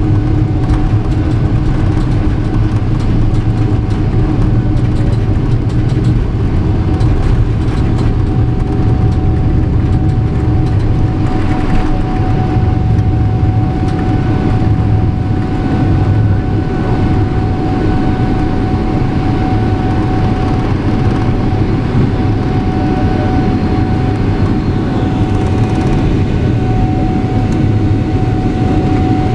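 Steady engine and airflow rumble heard inside the cabin of a Boeing 777-300 airliner, with a steady mid-pitched hum over the low rumble.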